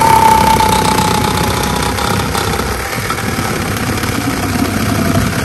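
Cordless reciprocating saw running under load, its blade cutting through a building block with a steady, harsh buzz.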